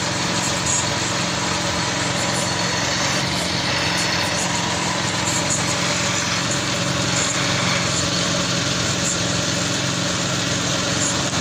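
Small petrol engine of a portable air compressor running steadily at an even speed.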